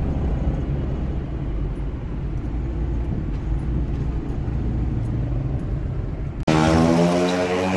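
Low engine and road rumble inside a moving vehicle's cabin. About six and a half seconds in, it cuts suddenly to a louder engine with a higher, clearly pitched note.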